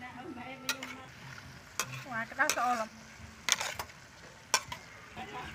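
Metal spatula stirring vegetables in a steel wok, scraping the pan and striking its side in several sharp clinks.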